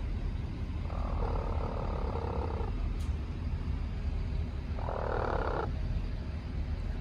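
Domestic hen making two rough, rolling purr-like trills: a longer one about a second in and a shorter one about five seconds in, over a steady low rumble.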